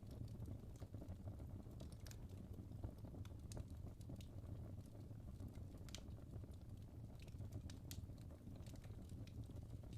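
Wood logs burning in a fireplace: a quiet low rumble of the fire with irregular sharp crackles and pops.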